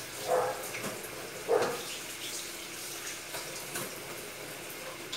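Water running from a kitchen tap, a steady rush, with two brief louder sounds in the first two seconds.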